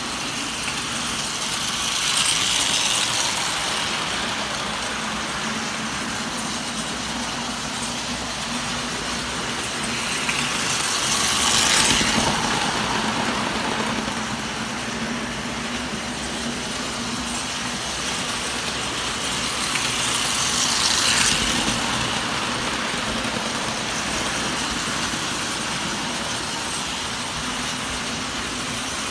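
Standard gauge tinplate toy train running around the layout: a steady rattling hum of its motor and wheels on the metal track. It swells three times, about every nine seconds, as the train comes round close by.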